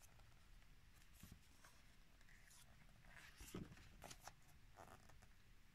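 Near silence, with a few faint paper rustles and soft ticks as the pages of a book are turned by hand.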